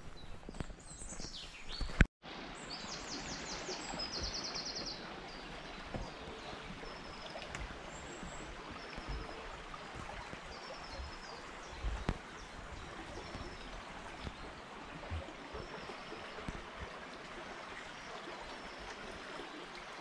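A small woodland stream flowing with a steady rush of water. Birds sing over it, with a fast trilling song a few seconds in and scattered high chirps later.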